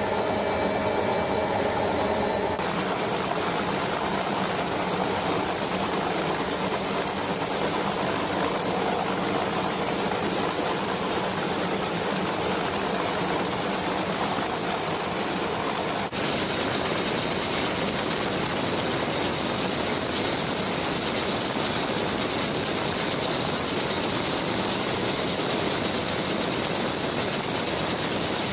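Steady, even aircraft engine and airflow noise, as heard from an aircraft in flight. The sound shifts abruptly about two and a half seconds in and again about sixteen seconds in.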